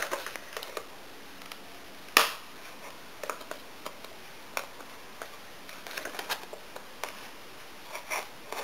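A thin metal blade cutting and prying at hard plastic retail packaging, making scattered clicks, scrapes and small cracks of the plastic; one sharp crack about two seconds in is the loudest.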